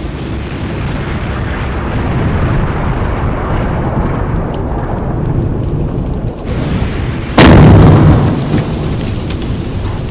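Custom Godzilla sound effect: a long, loud, rumbling explosion-like roar, with a sudden louder blast about seven seconds in that dies away over a second or so.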